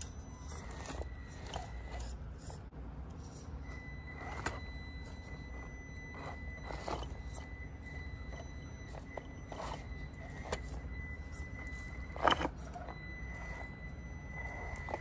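Traxxas TRX-4M 1/18-scale RC crawler climbing over rocks: a thin, steady whine from its small electric motor and gears comes and goes as it drives, with scattered clicks and knocks of tyres and chassis on stone, the sharpest about twelve seconds in, over a low steady rumble.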